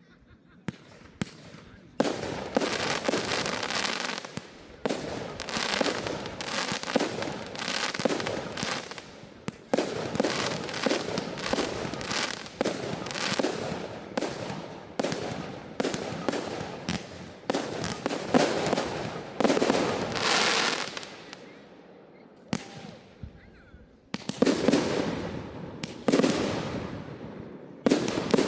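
Fireworks display: a few sharp cracks, then a dense barrage of bursts and crackling reports, many a second. A short lull comes about three-quarters of the way through before heavy bursts resume.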